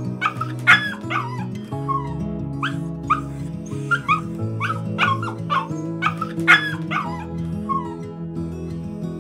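Small dog yipping and whining excitedly in greeting, short high cries coming in quick clusters, some falling in pitch. Background music with held notes runs underneath.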